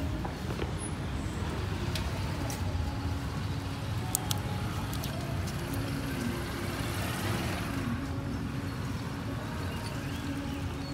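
Steady low rumble of motor vehicle engines, like road traffic, with a few faint light clicks.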